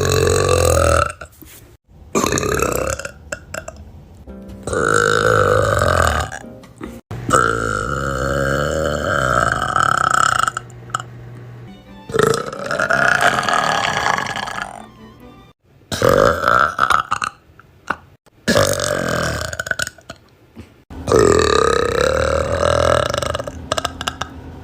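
A run of long, loud burps from young women, one after another with short gaps between them, several rising in pitch as they go.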